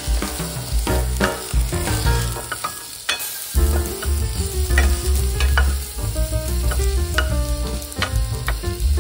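A wooden spatula stirs and scrapes pork belly, ginger and garlic frying in a small ceramic-coated pan, with light sizzling. Background music with a bass line plays over it.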